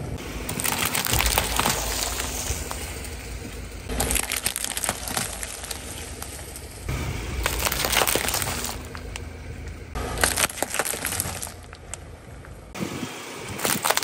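Car tyre rolling slowly over clear plastic cups packed with water beads, crushing them: repeated bursts of cracking plastic and popping beads, about five in all with short lulls between, over the low rumble of the car.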